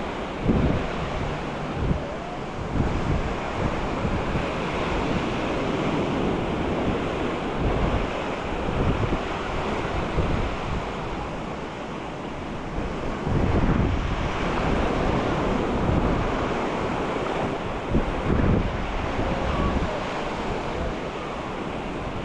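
Sea waves washing onto the beach in a continuous surf noise, with wind buffeting the microphone in irregular low gusts.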